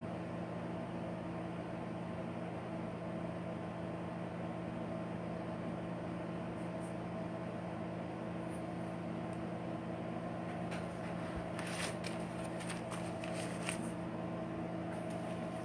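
Steady room hum of a running fan or appliance, with several fixed hum tones. A handful of light clicks and rustles come in the latter part.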